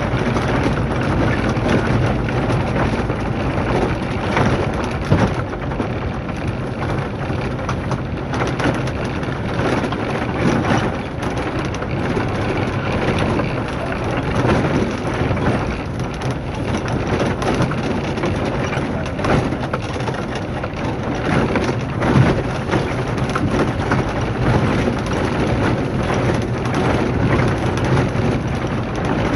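Vehicle driving on a rough dirt road, heard from inside: a steady engine hum under constant rattling, with frequent knocks and jolts from the bumpy track and gravel under the tyres.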